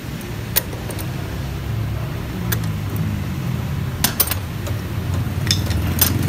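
A few sharp metallic clinks of hand tools working on a scooter's front brake caliper, scattered over a steady low rumble.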